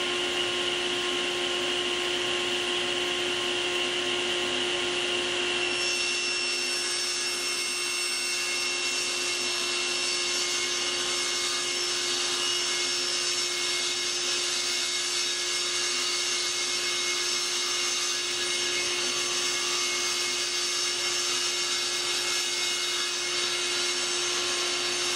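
Table saw running steadily with a combination blade set low, cutting a shallow groove into a plywood panel; the sound turns brighter about six seconds in as the blade bites into the wood.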